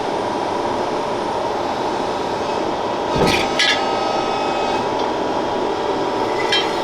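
Steady machinery drone in a metal workshop, with two short knocks about three seconds in and another near the end.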